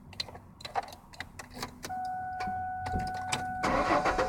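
Keys clicking and rattling at the ignition, then a steady whine for about a second and a half. Near the end the 2001 Ford Mustang's 3.8 L V6 is cranked by the starter and catches straight away.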